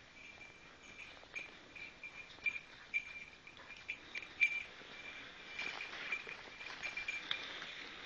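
A hunting dog's collar bell tinkling at one high pitch in short, irregular jingles as the dog works the undergrowth, with footsteps crunching in dry leaves about midway.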